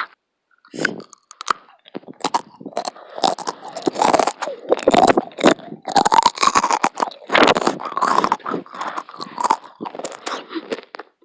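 Irregular, close-up crunching and crackling noises, many quick crackles one after another.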